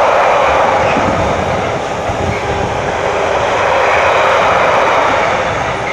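Container flat wagons of an intermodal freight train rolling past at speed: a loud, steady noise of wheels on rail, easing slightly near the end.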